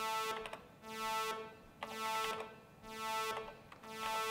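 Live-coded software synthesizer playing a buzzy note built on two slightly detuned oscillators near 220 Hz, repeated about once a second. The amplitude envelope has an attack set, so each note fades in instead of starting abruptly.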